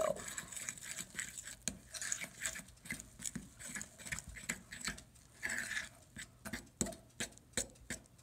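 Metal fork stirring sticky biscuit dough in a mixing bowl: irregular soft scrapes and light clicks of the fork against the bowl, coming in uneven flurries.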